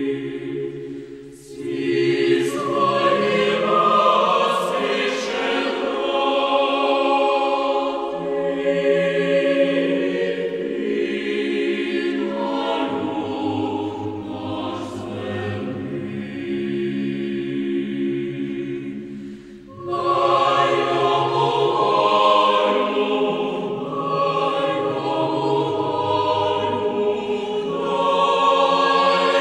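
A choir singing a slow song in long held notes, breaking briefly between phrases about a second and a half in and again about twenty seconds in.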